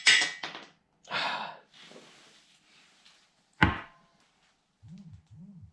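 Knocks and clunks of tools and metal parts being handled while unbolting engine bracketry, with a sharp knock about three and a half seconds in and two short low creaks near the end.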